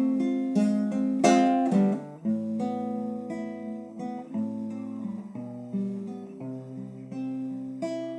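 Acoustic guitar playing an instrumental passage without voice: single plucked notes over ringing bass notes, with one full strum about a second in.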